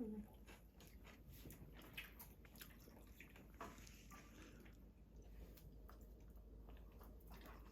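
Near silence: faint chewing with scattered light clicks and taps.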